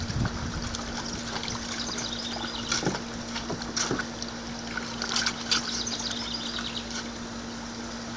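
Water running from a garden hose into a plastic tub, with splashes as a Siberian Husky paws and bites at the stream, sharpest around three, four and five seconds in. A steady low hum runs underneath.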